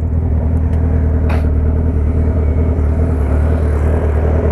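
Sport motorcycle's inline-four engine idling steadily at a standstill, a low, even note through an aftermarket exhaust.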